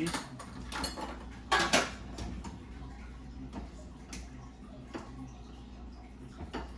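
Pots and dishes clattering as they are handled. The loudest clatter, lasting under half a second, comes about a second and a half in, followed by a few faint knocks.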